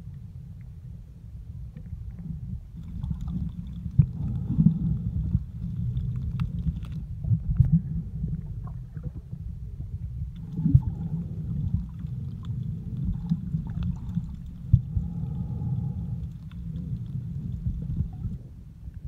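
Muffled underwater sound picked up by a camera in a waterproof housing: a steady low rumble of water moving against the case, with scattered sharp clicks and crackles.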